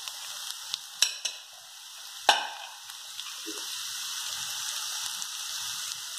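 Boiled potato cubes and cumin frying in hot ghee in a kadai, a steady sizzle. A few sharp clicks about a second in and one louder knock a little past two seconds.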